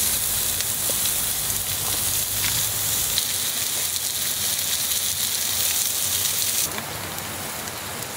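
Pork belly and onions sizzling on a grill, a dense steady hiss with an occasional pop, which falls away a little over 6 seconds in.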